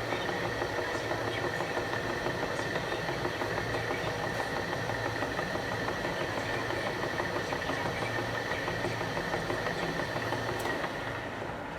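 Enshu VF2 milling machine running, a steady high whine over a fast, fine rattle; the whine stops shortly before the end.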